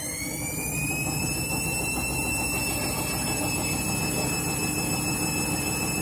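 Candy Smart Touch front-loading washing machine spinning: the motor's whine rises in pitch as the drum speeds up, then levels off about a second in and holds steady over the low rumble of the spinning drum.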